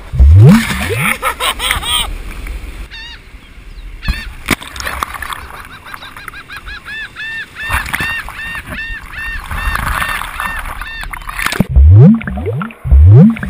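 A breaking wave washes over an action camera at the water's surface, with water splashing and rushing across the housing. A rapid run of squeaky rising-and-falling tones repeats for several seconds over the water noise, then cuts off suddenly as the camera goes under, leaving muffled low sloshing thumps.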